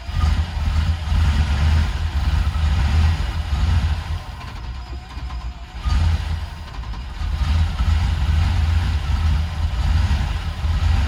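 Starter cranking the 1990 Range Rover Classic's Rover V8 in two long bursts, with a short pause after about four seconds. The engine turns over without catching: the new fuel pump turns out to be wired backwards and is not delivering fuel.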